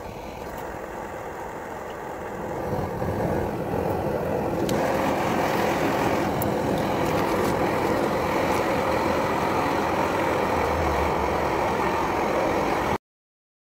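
A fire-brick chip forge running with its blower on, lit by a hand torch: a steady rushing noise that grows louder over the first few seconds as the fire comes up, then holds level and cuts off suddenly near the end.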